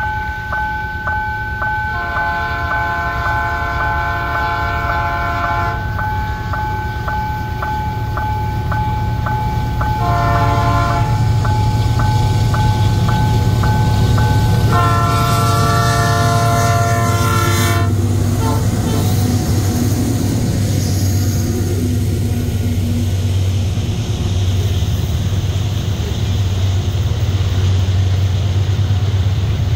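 GE ES44AC diesel-electric locomotive approaching a level crossing. It blows its multi-note air horn in the crossing pattern, long, long, short, long, the last blast ending about 18 seconds in, while its bell rings steadily between the blasts. Engine rumble builds as it arrives, then the grain hopper cars roll past with a steady rumble and wheel clatter.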